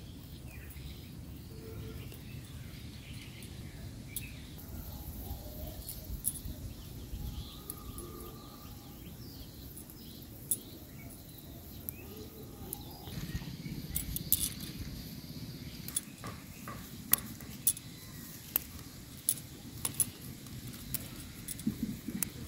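Hechi shak (leafy green) stems being picked by hand: scattered sharp snapping clicks, coming more often in the second half, over a low steady rumble.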